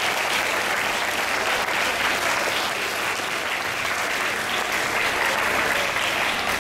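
An audience applauding steadily, a hall full of hands clapping.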